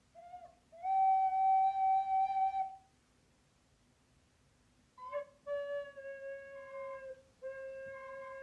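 Recorder played in long held notes: a short note, then a higher note held for about two seconds, a pause, then lower notes held through to the end.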